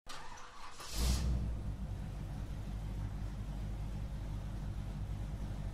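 A muscle-car engine starting, catching with a sudden burst about a second in, then settling into a deep, steady idle.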